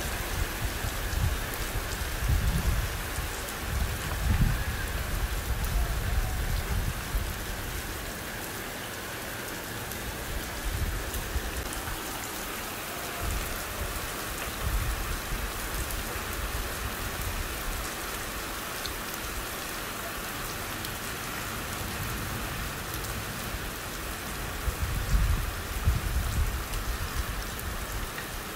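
Steady rain falling on the ground and surrounding surfaces, an even hiss of drops, with low gusty rumbles in the first few seconds and again near the end.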